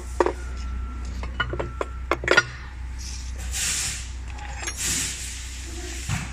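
Metal clinks and knocks as an air brake compressor's aluminium cylinder head and valve plate are handled and set down on the truck engine, the loudest knock about two and a half seconds in. Later come two short bursts of rustling, over a steady low hum.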